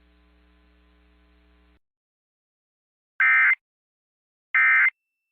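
Emergency Alert System digital data tones: after a faint hum cuts off about two seconds in, two short, loud, buzzy bursts of warbling data about a third of a second each, sent a second and a third apart. These are the SAME end-of-message code that closes an EAS alert.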